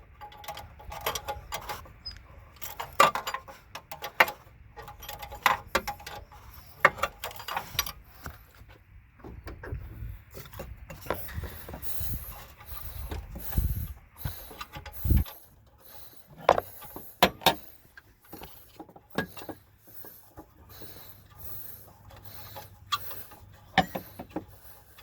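Irregular metallic clicks and knocks of a 7/8 wrench and tools working an oxygen sensor loose and unscrewing it, a few of them sharp and loud.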